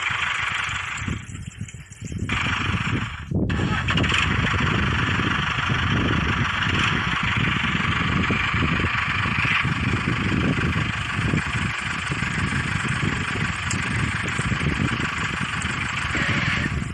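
Tractor engine running, cutting out briefly about two seconds in, then running steadily.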